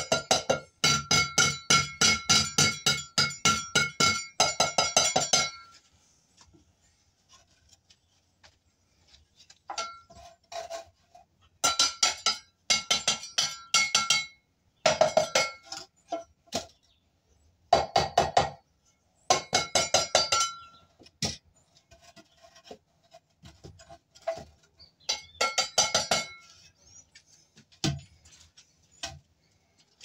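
Hand hammer striking at the concrete floor in quick runs of ringing, metallic blows, about four a second. A long run fills the first five seconds, then shorter runs of a second or two follow with pauses between.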